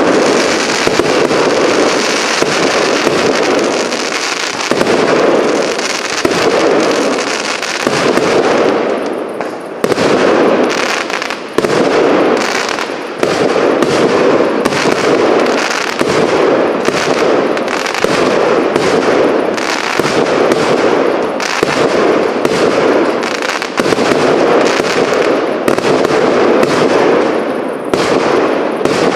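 A fireworks cake (battery) firing shot after shot, about one a second, the bursts overlapping in a dense, continuous crackling.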